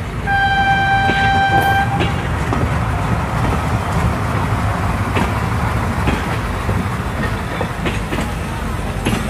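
A train horn sounds as one steady note for nearly two seconds, followed by a steady rumbling of a running train. These are the train sound effects that go with a restaurant's food-carrying model train.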